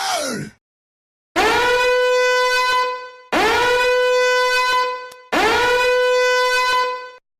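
Three long blasts on a horn, each about two seconds, with the pitch scooping up at the start into one steady buzzy note. A falling tone from the previous effect dies away about half a second in.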